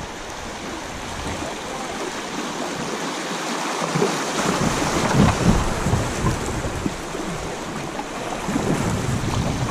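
Shallow river riffle rushing and splashing around a kayak running through it, loudest about halfway through as the boat passes the whitewater, with a low gusty rumble on the microphone.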